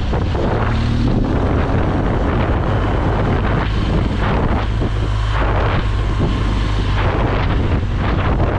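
Wind rushing over a motorcycle rider's camera microphone, with the motorcycle's engine and road noise underneath as a steady low rumble.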